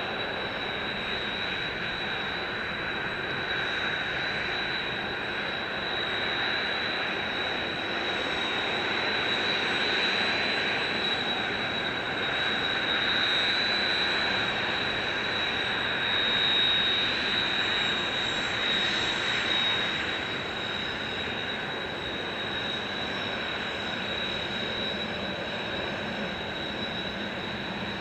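Kawasaki T-4 jet trainers' twin F3 turbofan engines running at taxi power: a steady jet whine with a high, steady whistle on top, swelling a little in the middle.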